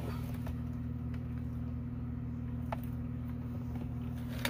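A steady low mechanical hum throughout, with a few faint light clicks as radio wiring and its connectors are handled.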